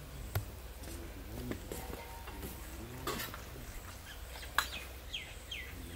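Birds chirping outdoors, including two short falling chirps near the end, with three sharp taps as dough balls are rolled between the palms and set on a wooden table.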